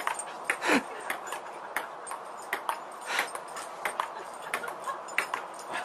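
Table-tennis ball clicking irregularly against the tabletop and the dog's mouth during a rally. Near the start there is one short, louder vocal sound that falls in pitch.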